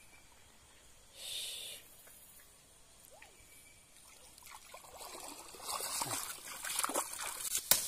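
Water splashing as someone wades through a shallow stream, starting faint about halfway through and growing louder, with a sharp knock near the end.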